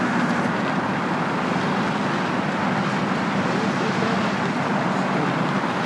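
Steady vehicle noise of a car on the move: an even rush of engine and road noise with no distinct events.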